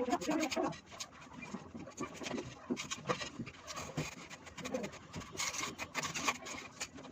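Irregular light knocks, clicks and scrapes of hand work on a building site, busier in the last couple of seconds.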